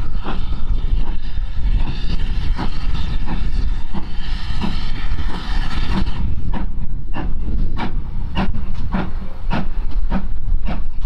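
A train running, with a steady low rumble and a sharp rhythmic beat about twice a second; a hiss sits over it and stops about six seconds in.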